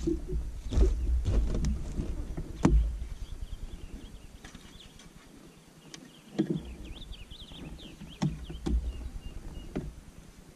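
Knocks and thumps on a fishing boat as someone moves about on board, over a low rumble. The knocks come irregularly, several in the first three seconds and a few more later, and faint high chirps come in the second half.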